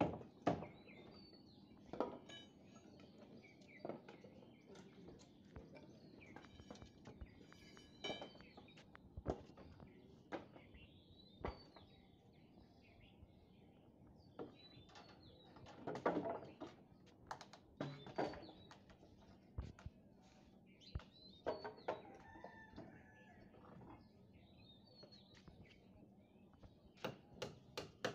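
Scattered sharp knocks and taps of building work on timber stair formwork and steel rebar, with a quick run of taps near the end. Birds call again and again in the background.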